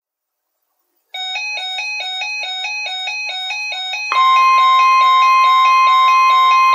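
Weather alert radios sounding off for a Required Weekly Test. About a second in, an electronic alarm starts, stepping back and forth between pitches about four times a second; about three seconds later a loud steady high tone joins it.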